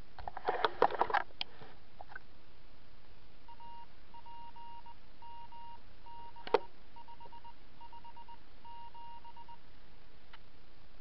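Amateur radio repeater sending its Morse code identification, heard over a radio receiver: a single beeping tone keyed on and off in dots and dashes for about six seconds, starting a few seconds in, over steady hiss. A quick cluster of sharp crackles and clicks comes before the Morse, and one loud click falls in the middle of it.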